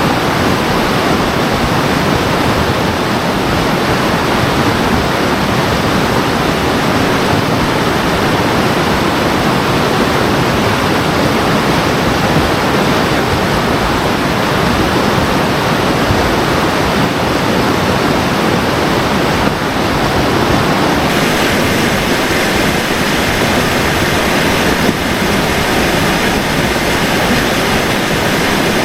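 Steady loud rushing of fast-flowing river water, with no other distinct events; about two-thirds of the way through it turns brighter and hissier.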